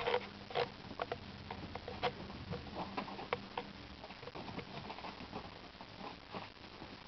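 Kittens wrestling on a fabric loveseat: irregular light taps and scuffles of paws on the upholstery.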